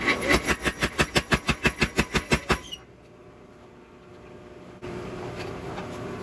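Power hammer striking a hot Damascus billet in a quick, even run of light blows, about five a second, to straighten it. The blows stop after about two and a half seconds, and a steady sound comes back about five seconds in.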